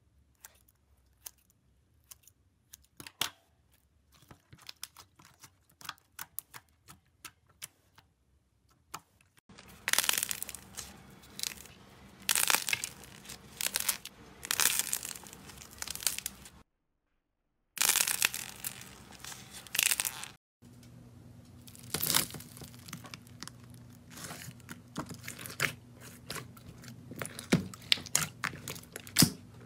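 Slime being handled up close: sticky crackles, pops and tearing sounds as it is cut with scissors, squeezed and poked. The first third is mostly quiet with scattered faint clicks, then the crackling comes in louder bursts, with a low steady hum behind the last part.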